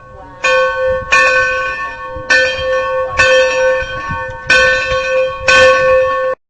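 Bell of steam locomotive No. 60 rung by hand: six strikes at uneven intervals, each ringing on until the next. It cuts off suddenly near the end.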